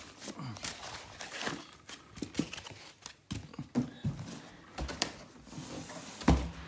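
Packaging being handled: polystyrene foam end pieces pulled off a plastic-wrapped projector, with irregular rustling, scraping and small knocks, and one louder low knock a little over six seconds in.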